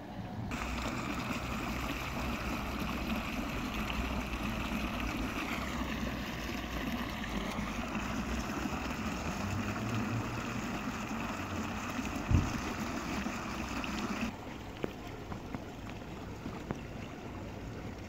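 Fountain water running from a small pipe spout and splashing into a shallow basin, a steady rush that becomes quieter about fourteen seconds in. A single brief low thump a little before that.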